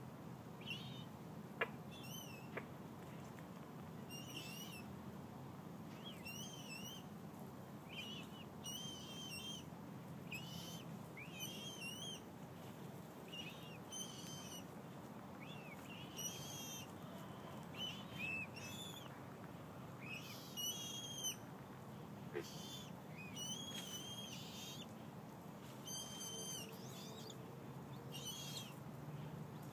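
Moorhen (common gallinule) chicks peeping: short high calls, repeated roughly every one to two seconds. Two sharp clicks sound near the start.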